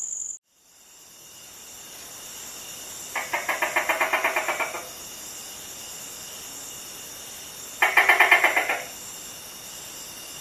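A gecko's rapid chattering call, a quick run of clicks at about eight a second, given twice: once about three seconds in for under two seconds, and again, shorter, near eight seconds. A steady high-pitched background hiss runs beneath.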